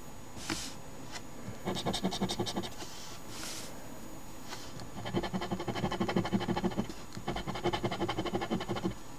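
A coin scraping the scratch-off coating of a lottery scratch ticket in fast back-and-forth strokes, in three bursts of one to two seconds each.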